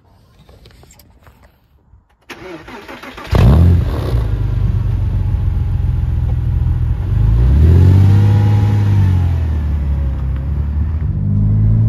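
Porsche 986 Boxster S's 3.2-litre flat-six being started: the starter cranks for about a second, then the engine catches with a loud flare and settles to a steady idle. About halfway through, a single rev rises and falls, and near the end the idle climbs a little.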